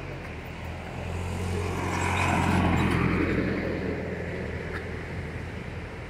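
A road vehicle passing by on the highway: it grows louder to a peak about two and a half seconds in, then fades, with a low engine drone under the tyre and wind noise.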